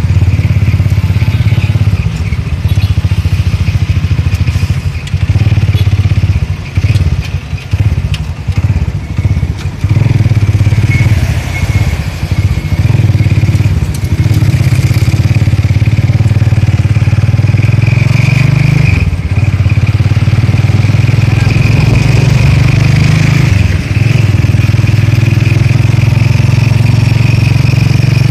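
Small motorcycle engine of a sidecar tricycle running under way, heard from inside the sidecar as a loud, steady low drone. The sound is uneven for several seconds in the middle, and the engine note dips briefly twice in the second half.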